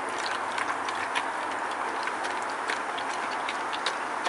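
Beagle eating dry kibble from a stainless steel bowl: irregular crunches and clicks of kibble against the metal, over a steady background hiss.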